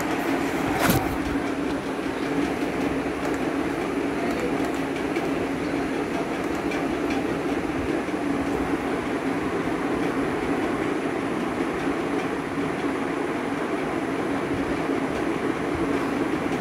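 Steady rumble and rattle of a moving vehicle heard from inside, with one sharp click about a second in.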